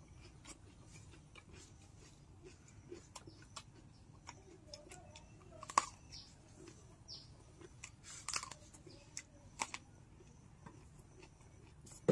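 A person biting and chewing food close to the microphone: scattered mouth clicks, with sharper bites about six, eight and nine and a half seconds in, one of them a bite into a raw small green eggplant.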